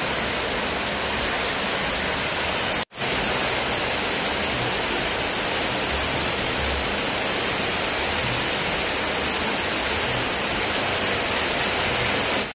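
Heavy rain falling, a steady even hiss, with a momentary dropout about three seconds in.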